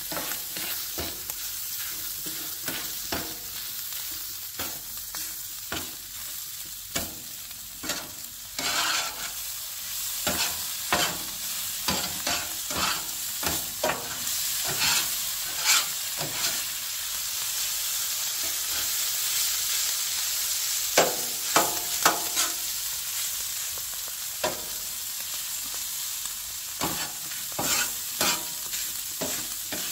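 Potatoes frying on a hot griddle: a steady sizzle, with frequent short scrapes and taps as they are stirred and turned.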